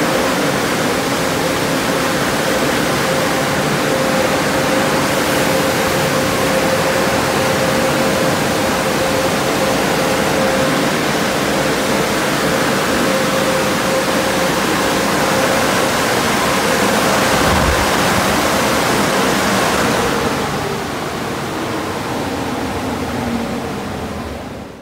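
Washworld Profile MAX in-bay automatic car wash running: a steady rushing noise with a steady mid-pitched whine, dropping in level about twenty seconds in.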